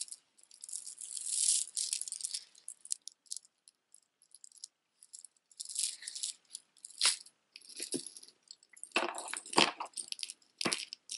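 Plastic dangly beads and metal chain of a bead necklace rattling and clinking as it is handled and bundled up in the hands, with several sharper knocks in the second half.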